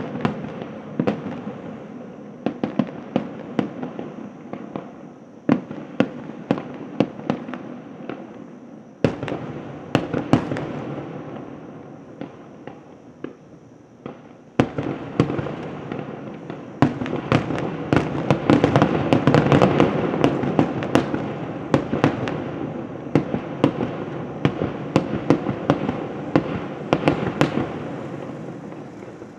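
Aerial fireworks shells bursting, many sharp bangs in quick succession over a continuous crackle. The bangs come thicker and louder from about halfway through.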